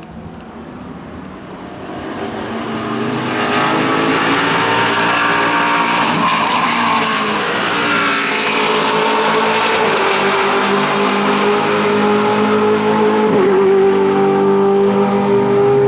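Maserati GranTurismo MC Corsa race car's V8 engine running hard on track, growing louder over the first few seconds and then staying loud at high revs, with a quick pitch change about three-quarters of the way through, like a gearshift.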